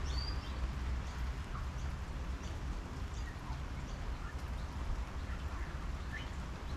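Steady rain falling in a garden, drops pattering on a wet table and leaves, over a steady low rumble. A few short bird chirps come through, one near the start and another about six seconds in.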